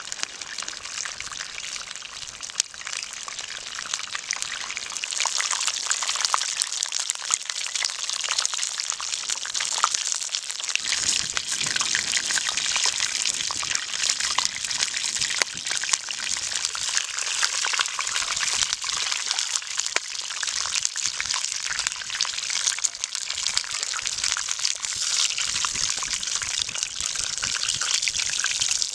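Belyashi deep-frying in hot oil in a cast-iron pan: a steady sizzle with dense crackling.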